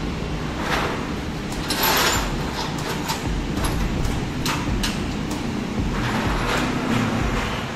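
Metal scrap tray on casters being pulled out from under a fiber laser cutting bed, with short scrapes and clinks as a hook tool rakes through the cut steel pieces lying in it, over a steady low rumble.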